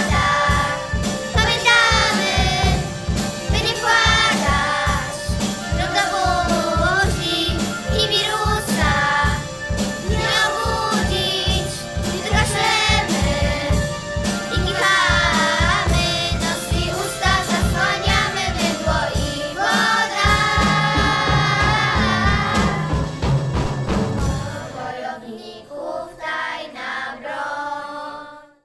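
Children singing a pop song in chorus over a backing track with a steady drum beat. About 25 seconds in the beat drops out and the voices carry on more quietly before the song ends.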